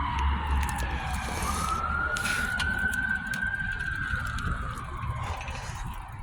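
A siren wailing in slow sweeps: its pitch falls, rises again about a second in, holds high, then falls off near the end. A low rumble runs underneath.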